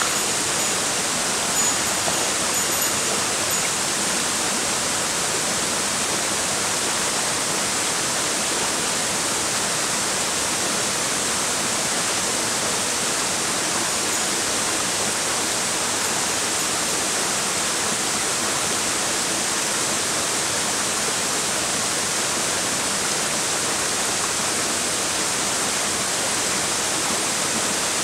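Mountain stream rushing over rocks: a steady, even wash of fast-flowing water.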